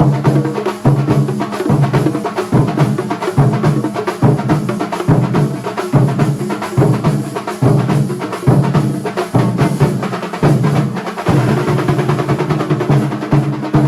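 Kerala thambolam percussion ensemble playing fast, continuous drumming.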